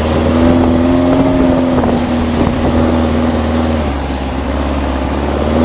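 Air-cooled Volkswagen flat-four engine running hard under load while driving through snow, easing off about four seconds in and pulling up again near the end, with heavy low rumble.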